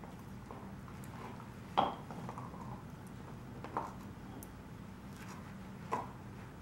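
A dog gnawing on a knotted chew bone, its teeth clacking and crunching on the chew in three sharp bites about two seconds apart, the first the loudest, with fainter licking and chewing ticks between.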